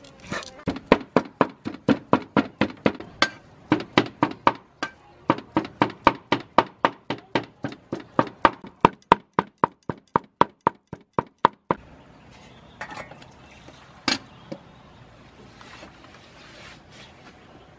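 Meat cleaver chopping raw meat into mince on a wooden chopping block: quick, even strokes about three or four a second, with a short break, stopping about twelve seconds in. A single sharp knock follows a couple of seconds later.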